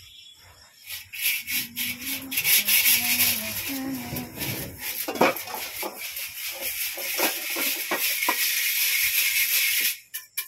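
Freshly roasted flattened rice (chire) rustling and rattling as a hand stirs and rubs it in a perforated clay strainer. It is a continuous gritty rattle of many small ticks that stops abruptly near the end.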